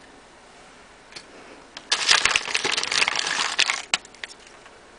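Foil wrapper crinkling as a chocolate surprise egg is unwrapped by hand: a dense, crackly burst lasting about two seconds, starting about two seconds in, followed by a few single clicks.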